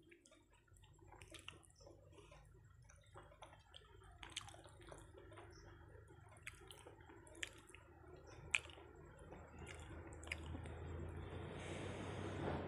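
Fingers mixing rice with dal and curry on a plate, making soft wet squishing sounds, with chewing and small sharp mouth clicks; it grows louder near the end.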